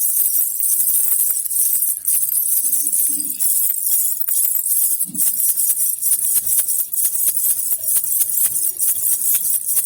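Baby's jhunjhuna rattle with small bells shaken steadily: a bright, continuous jingling made of many quick clicks.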